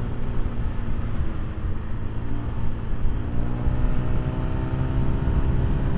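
Honda BeAT scooter's small engine running under way, heard over the rush of wind and road noise, with the engine tone rising slowly as it picks up speed.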